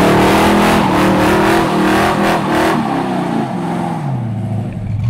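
An engine held at high revs during a burnout, with the revs falling away about three seconds in.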